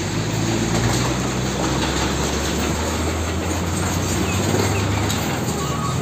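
Diesel engine of an Isuzu FTR car-carrier truck running as it drives past, a steady low rumble with road noise that eases off about five seconds in.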